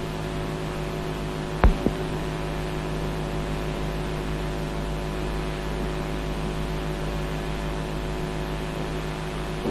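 Steady electrical hum with hiss from an old film soundtrack, with two faint clicks nearly two seconds in.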